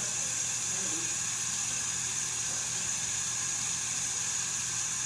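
Kitchen faucet running a steady stream of water into a glass baking dish that is already partly full, a constant splashing hiss.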